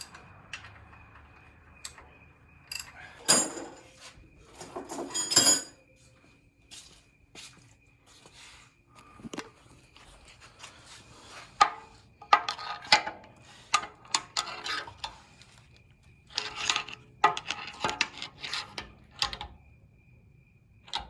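Steel frame parts and hand tools clinking, clanking and scraping against each other in scattered clusters of sharp metallic knocks as bolt holes are worked into line.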